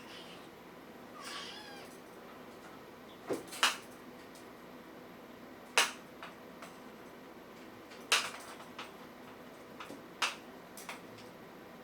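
A kitten gives one short, high-pitched mew about a second in, followed by a handful of sharp clicks or light knocks spaced a couple of seconds apart.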